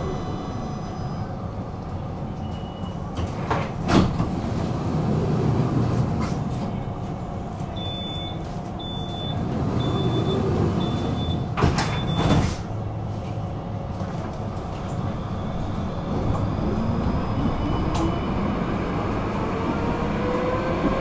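Inside a tram standing at a stop: a couple of door knocks, then five short high beeps warning that the doors are closing, ending in a clunk as they shut. Near the end the traction motor whine rises steadily as the tram pulls away.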